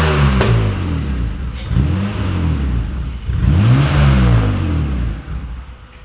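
Car engine being revved: the pitch falls from a blip at the start, then rises and falls twice more, about two seconds apart, before dying away near the end.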